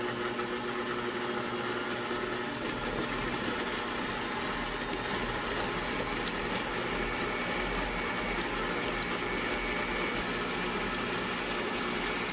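Sunbeam MixMaster Heritage Series stand mixer, a 350-watt motor, running steadily with its standard beaters creaming softened butter in the bowl. The sound turns rougher about two and a half seconds in as the beaters work into the chunks of butter.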